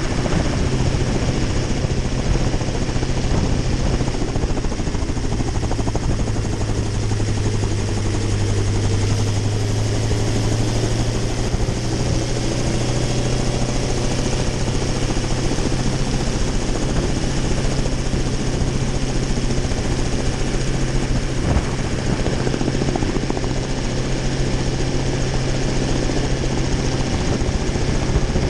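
A small single-seat helicopter running on its skids with the main rotor turning: a loud, steady engine and rotor drone.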